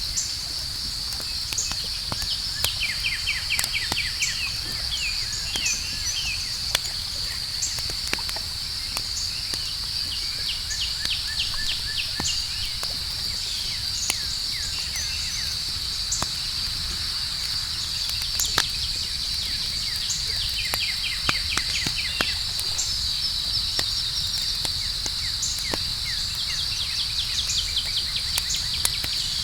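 Campfire crackling with scattered sharp pops, under a steady high-pitched chorus of crickets, with short runs of rapid chirping trills now and then.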